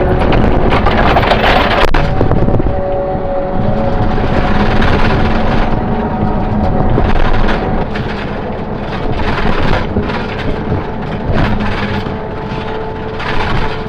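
Takeuchi TL12 skid steer running loudly, a steady engine drone under rough, rumbling noise that surges every second or two.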